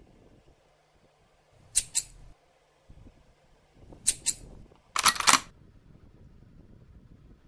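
Sharp clicks from fitting an IDC connector onto FRC ribbon cable and working a hand crimping tool: a quick pair of clicks, another pair a couple of seconds later, then a louder rapid cluster of clicks about five seconds in.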